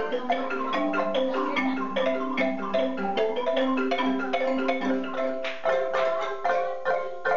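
Several wooden marimbas played together with mallets, a quick, repeating pattern of struck notes over a lower bass part. The low bass notes stop about five and a half seconds in, leaving the higher notes.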